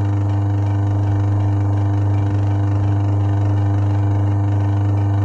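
Washing machine wash motor, a capacitor-run single-phase motor, running steadily under power, a loud, even, deep electrical hum with no change in speed.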